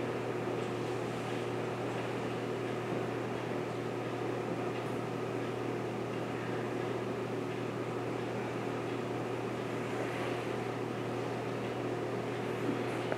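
Steady machine hum with a low drone and an even fan-like hiss, unchanging throughout.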